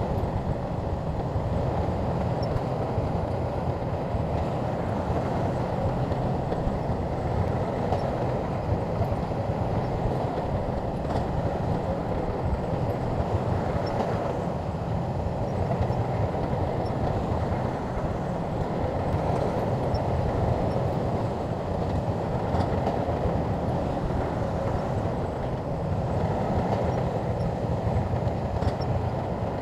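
Shantui bulldozer at work pushing and levelling earth, its diesel engine running steadily.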